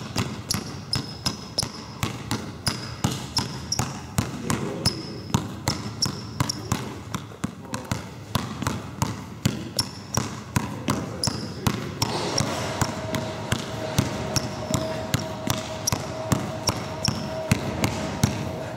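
Basketball dribbled steadily and hard on a wooden sports-hall floor, about two to three bounces a second.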